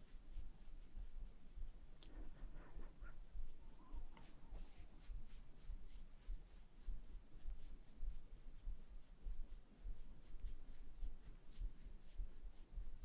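Fingertips rubbing over hair and scalp in a self-massage of the base of the skull: a faint, rhythmic scratchy rustle of about three strokes a second.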